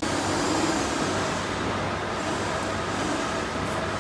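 Single-wire chain link fence making machine running: a steady mechanical din of its motor, shafts and wire-weaving gear, with a faint steady hum in it.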